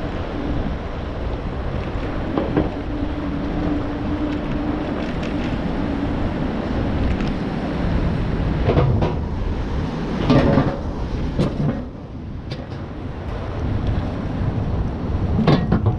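Wind rushing over a microphone carried on a moving bicycle: a steady low buffeting, with a faint steady tone in the first few seconds and a few brief knocks later on.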